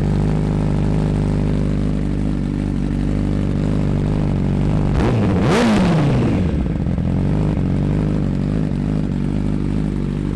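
2017 Honda CBR1000RR SP's inline-four engine idling through a Yoshimura slip-on exhaust, blipped once about halfway through in a quick rev that rises and falls back to idle. The sound is amplified by the basement walls.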